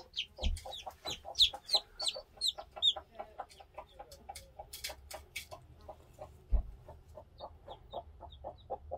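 Mother hen clucking in a steady run of short low clucks, about three or four a second, as she is disturbed on her chicks. Chicks cheep in high falling peeps over the first three seconds and again near the end. There are two dull thumps and a few sharp clicks from handling.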